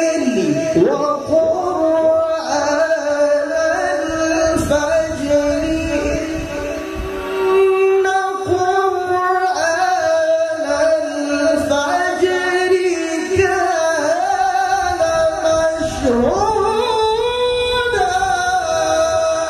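A male qari reciting the Quran in the melodic tilawah style, singing long, ornamented phrases into a handheld microphone, with a sharp rise in pitch near the end.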